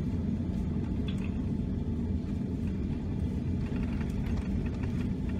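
Steady low rumble heard inside the cabin of a Boeing 787-9 during its landing roll along the runway.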